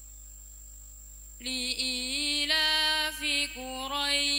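A young woman reciting the Qur'an in a slow, melodic style through a microphone and PA system. After a quiet first second and a half, she comes in with long held notes that step and bend in pitch.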